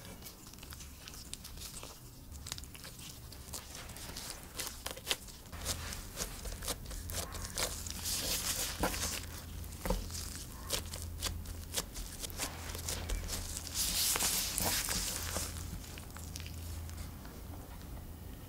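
Soft, oily potato yeast dough being pinched closed and pressed flat by hands in disposable gloves on a wooden tabletop: sticky squishing with small clicks and crackles of dough and glove. There are louder crackly stretches about 8 and 14 seconds in.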